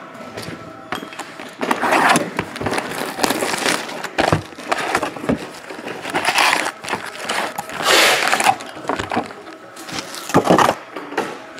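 A cardboard trading-card box being opened by hand and its card packs pulled out and stacked: irregular crinkling, rustling and tearing of wrapper, cardboard and packs, with a few sharper cracks.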